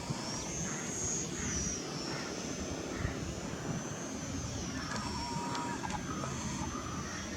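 Small electric motor and propeller of a 400mm mini RC warbird whining in flight, its high pitch rising just at the start as the throttle comes up, then wavering with throttle changes, over a rumble of wind on the microphone.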